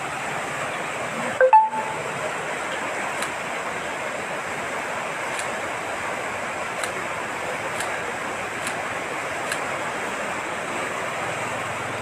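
Floodwater rushing fast and churning through a street, a steady loud rush of water. A short, loud, pitched sound cuts in briefly about a second and a half in.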